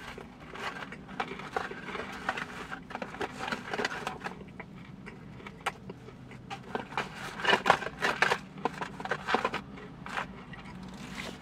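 Fast-food packaging rustling and crinkling in irregular bursts as food is picked out of it. The bursts are busiest a little past the middle.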